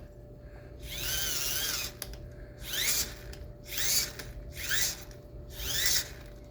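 Microwave turntable motor being spun by hand through its gears, whirring in about five short spins, each whine rising and then falling in pitch as the motor speeds up and slows.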